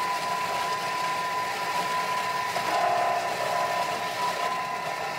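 Thermomix TM6 food processor blending a batch of hummus: a steady motor whine with one tone held level.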